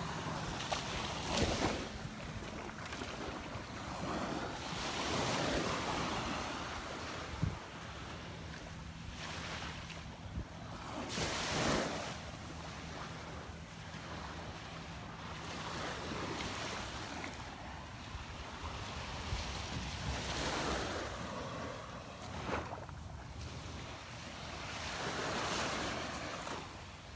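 Small waves breaking and washing up a sandy beach, each wash swelling and fading every few seconds, with wind rumbling on the microphone.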